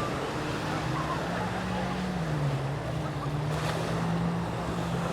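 Seaside ambience: surf and wind noise with a low, steady engine hum that shifts slightly in pitch. A brief hiss comes about three and a half seconds in.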